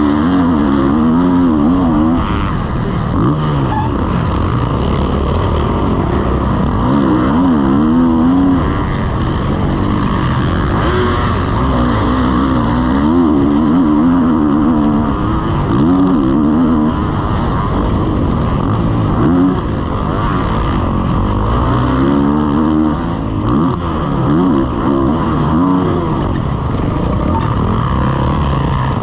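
Kawasaki KX450 motocross bike's single-cylinder four-stroke engine being ridden hard, its pitch rising and falling again and again with the throttle and gear changes.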